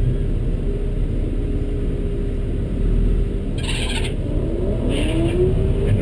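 Drag-race car engines: a close car's engine idling with a steady rumble while the race car ahead launches down the strip, its engine rising in pitch from about four and a half seconds in as it accelerates away.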